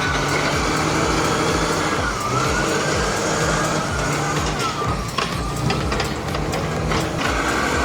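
Heavy truck's diesel engine running steadily under load, with a high whine that dips in pitch twice and a few knocks in the second half.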